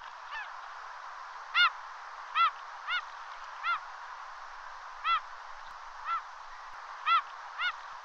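Gulls calling: about eight short calls at uneven intervals over a steady background hiss.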